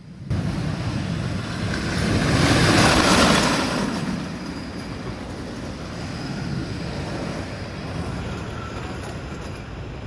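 Wooden roller coaster train running the track, likely an empty test run. It is a loud rumbling run that swells to its loudest about three seconds in, then carries on at a steadier, lower level.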